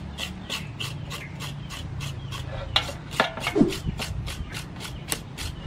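A knife blade scraping the skin of a raw pork leg in quick, even strokes, about four a second, to clean off hair and dirt. A brief falling squeak-like sound comes about three and a half seconds in.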